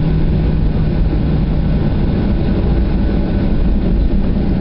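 Boeing 737-800 cabin noise during the takeoff roll: its CFM56-7B turbofan engines running at high thrust, a loud, steady, low-heavy rumble. A low steady hum under it fades out about two seconds in.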